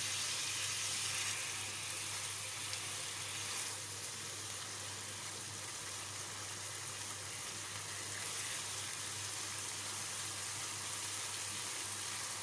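Tomato sauce with soy sauce and vinegar sizzling steadily in a non-stick frying pan as it cooks down, over a low steady hum.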